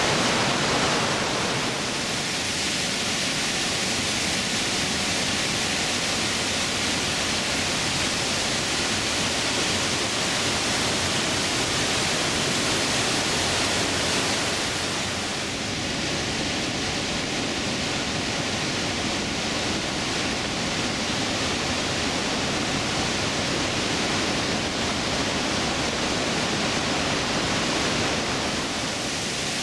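Trümmelbach Falls, a glacial-meltwater waterfall, rushing steadily through an enclosed rock gorge inside the mountain. The tone of the rush shifts slightly about two seconds in and again around halfway.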